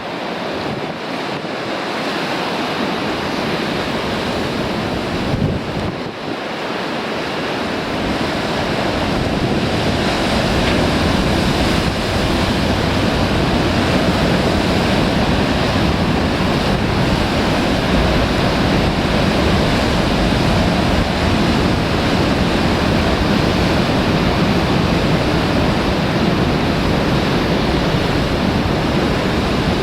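Sea surf breaking on a rocky shore, with strong wind buffeting the microphone. The rushing, rumbling noise grows louder over the first ten seconds or so, then holds steady.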